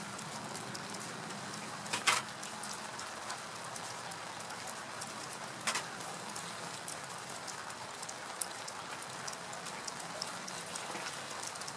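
A tin-can sand-casting flask being handled and opened, with a short sharp click about two seconds in and another near six seconds. Under them is a steady, light crackling hiss.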